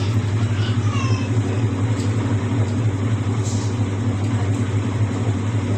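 Whirlpool White Magic Royal Plus 7 kg top-loading washing machine running in spin with a steady, even hum, on a newly fitted suspension rod that replaced the worn one that made it jump.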